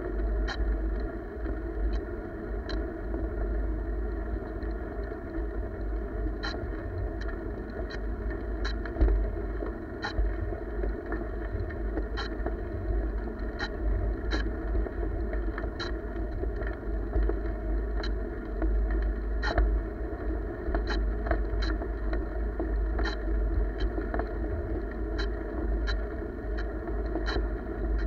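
Wind rumble on the microphone and rolling noise of a ride along a paved trail, with a faint steady hum. From about six seconds in come sharp ticks, irregular, about one every second or so.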